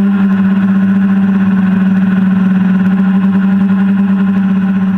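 Hexacopter's electric motors and propellers in flight, a steady buzzing hum with one strong low tone and many overtones, heard from the camera on board.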